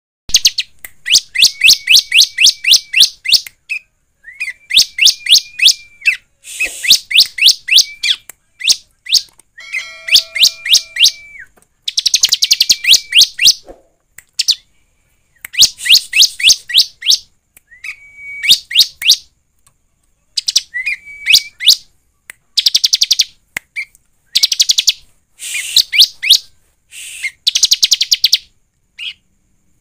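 Bar-winged prinia (ciblek) calling in fast runs of sharp, high chirps, about five a second. Each run lasts two to three seconds, with short pauses between runs.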